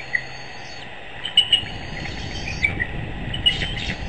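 Songbirds in the pre-dawn chorus: short, sharp chirps come in small clusters, the loudest about a second and a half in, over thin, high held notes. A low rumble builds underneath through the second half.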